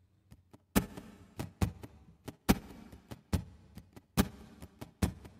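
Hand taps and knocks on the body of an acoustic guitar, played as a percussion beat: a heavier low knock about every second and a half or so, with lighter taps between, starting just under a second in.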